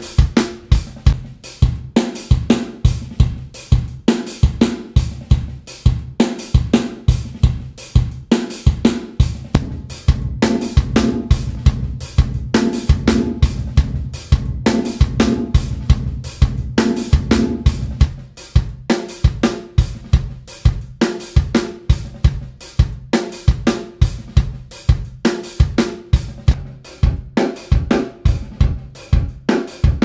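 A drum kit loop of kick, snare, hi-hat and cymbals, played through the D16 Group Spacerek reverb plugin. The reverb tail changes every several seconds as presets are switched, and it is thicker and more washed-out in the middle stretch.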